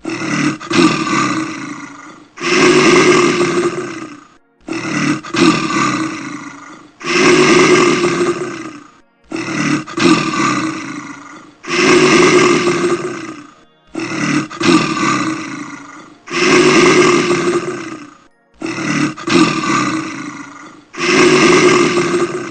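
Loud animal calls in a repeating two-part pattern, a shorter broken call followed by a longer one, about every four and a half seconds.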